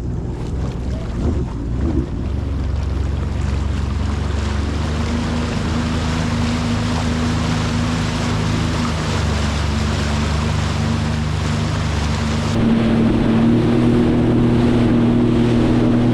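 Jet ski engine running steadily under way, with water and wind rushing past. Near the end the engine note shifts and gets a little louder.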